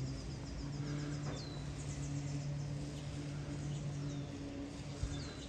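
Birds calling with short, high, downward-sliding notes, about a second and a half in and again near the end, over a fast high-pitched insect trill and a steady low hum.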